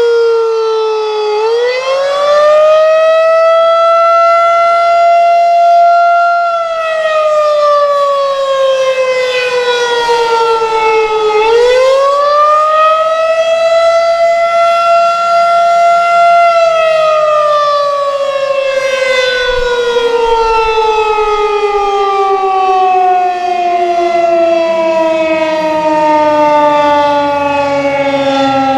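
Federal Signal 2001-DC roundback outdoor warning siren sounding the attack signal, a loud wail. The pitch falls, rises and holds twice, then drops in one long, slow fall through the second half.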